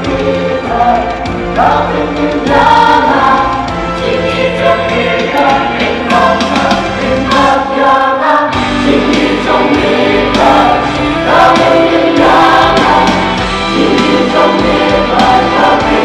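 A mixed choir of women and men singing a sacred piece in parts, holding chords that shift every second or so.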